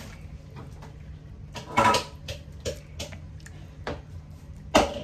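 A ladle serving chicken and dumplings from a pot into a ceramic bowl: several knocks and clinks of the ladle against the pot and bowl, the loudest about two seconds in and near the end.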